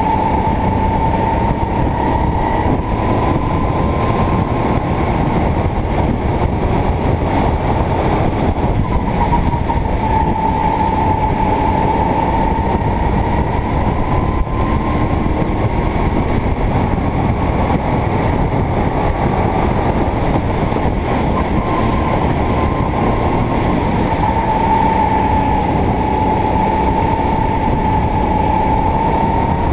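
Sodi racing kart's engine running hard, heard from onboard the kart, its pitch sagging and climbing gently several times as the driver brakes and accelerates through the corners.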